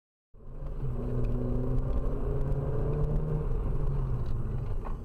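Car engine running and road noise heard from inside a moving car, a steady hum with road rumble, starting abruptly about a third of a second in. A couple of faint clicks near the end.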